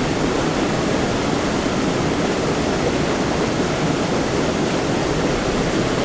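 Floodwater rushing in a steady, even torrent with no break.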